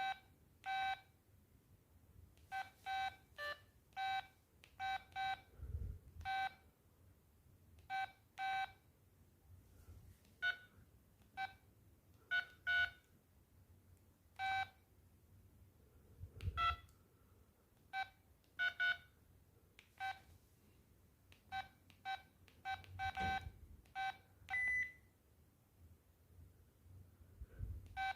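LG MD5330 mobile phone key-press beeps as its buttons are pressed: short beeps, nearly all of one pitch, singly and in quick pairs or runs at irregular intervals. A few faint low thumps sound between them.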